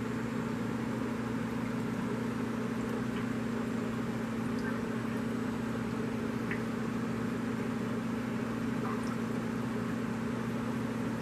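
Aquarium pump humming steadily, with an even hiss of running water and air beneath the hum.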